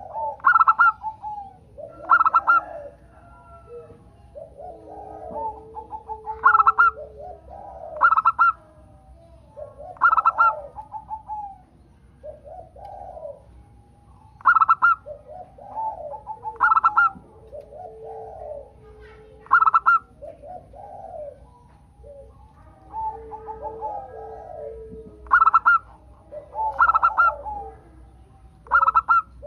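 Zebra doves (local perkutut) cooing: bright bursts of rapid staccato coo notes come about every two seconds, with lower, softer coo phrases between them.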